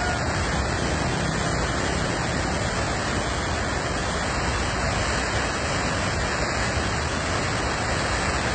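Cold lahar floodwater rushing down a river channel: a steady, unbroken rushing noise of a large, fast volcanic mudflow.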